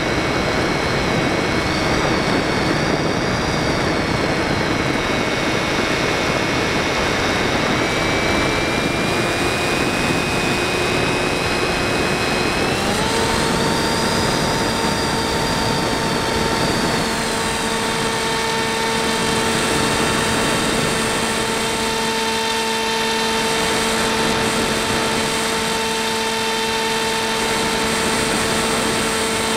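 EasyStar 2 RC model plane's brushless electric pusher motor and propeller whining steadily over a rush of airflow, heard from the camera on board the plane. The motor's pitch shifts in steps about eight seconds and thirteen seconds in.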